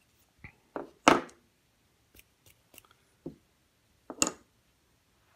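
Handling noise from a purpleheart wood fidget spinner and its ball bearing being pressed and set down on a work surface: a few scattered short clicks and scrapes, the loudest about one second in and about four seconds in.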